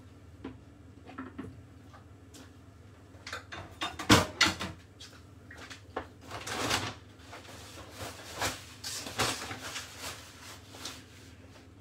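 Kitchen handling noises: a cluster of knocks and clatter about four seconds in, like drawers or cupboard doors being opened and shut, followed by several short swishing or rustling sounds.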